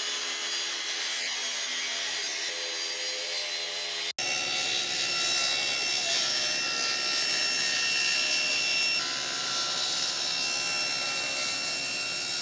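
A Festool track saw cutting a glued-up walnut and hickory panel with a steady whine. About four seconds in it breaks off abruptly and a table saw takes over, running and ripping the panel.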